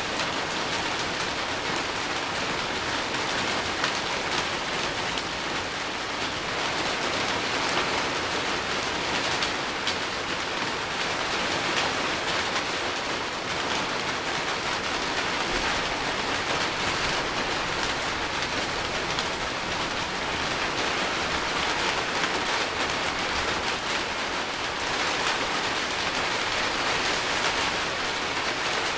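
Steady rain falling in a thunderstorm: an even hiss with many fine drop impacts.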